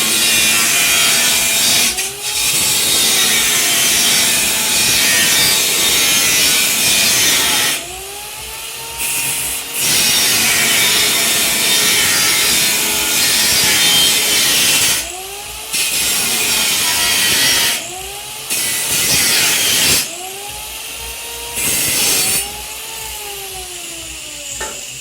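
Home-built CNC fiber laser cutter at work on metal. Several stretches of loud hiss, the assist gas blasting through the cutting nozzle during cuts, alternate with quieter gaps where a whine rises and falls as the servo motors move the cutting head between cuts.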